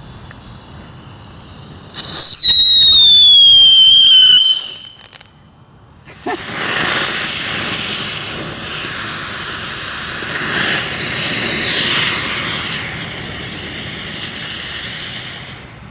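A firework's loud whistle falling in pitch for about two and a half seconds. After a short lull, fireworks go off suddenly in a long, loud burst of noise that runs about nine seconds and stops just before the end.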